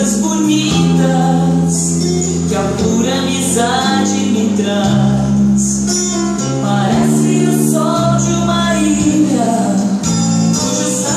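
A song playing: singing over steady instrumental chords that change every second or two.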